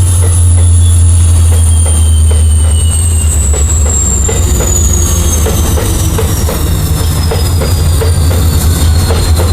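Train running on rails: a steady low rumble with regular clickety-clack about twice a second, and a thin high tone slowly falling in pitch.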